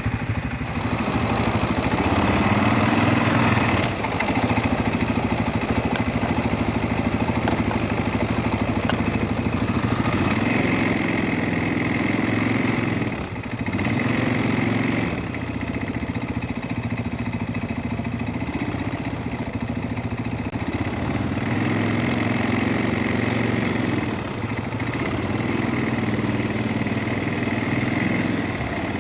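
CFMOTO ATV engine running on the move, its pitch rising and falling every few seconds as the throttle opens and eases off.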